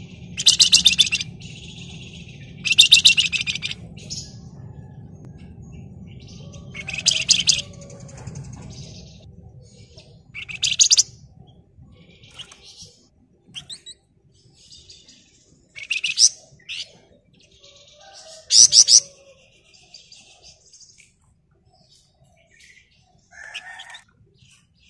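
Flamboyan songbird (Javan fulvetta type) singing in loud, high, rapid chattering trills, each under a second long, repeated every few seconds with short single notes between. A low steady hum sits under the first half.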